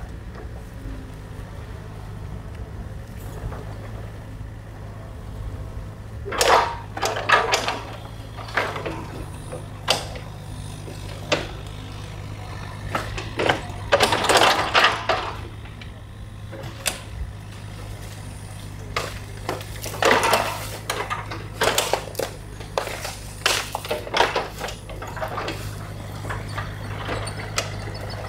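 New Holland mini excavator's diesel engine running steadily, with irregular bursts of cracking, scraping and clattering as the bucket tears into the beaver dam's sticks and mud.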